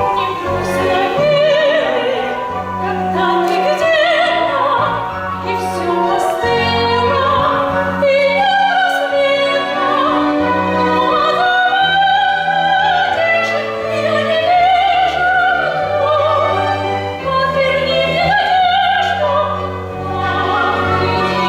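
Operetta singing: a trained voice with vibrato over symphony orchestra accompaniment, the bass notes changing about once a second.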